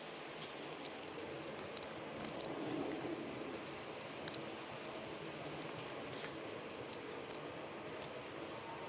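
Faint, scattered clicks and light scrapes of a screwdriver and small metal parts being handled while a small-engine carburetor is taken apart, over a steady faint hiss.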